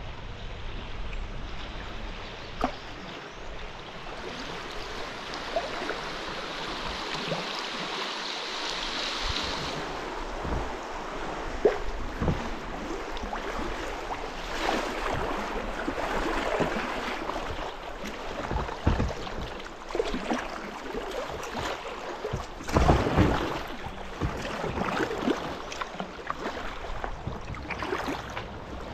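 Kayak paddling down a river: the steady rush and splash of moving water around the hull and paddle, with a few sharp knocks along the way, a cluster of them about two-thirds of the way through.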